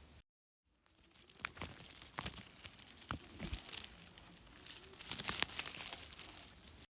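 Crumpling, crinkling foley sound: a dense run of quick irregular crackles lasting about six seconds, cutting in and out abruptly.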